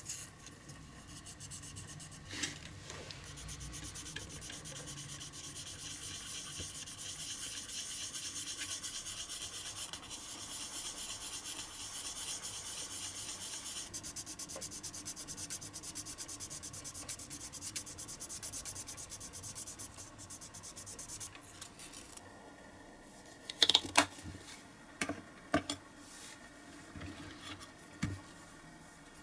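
Fast, steady rubbing strokes of fine sandpaper on a small plexiglass model-car window, growing finer and denser about halfway through and stopping about three-quarters of the way in. A few sharp clicks and taps follow near the end.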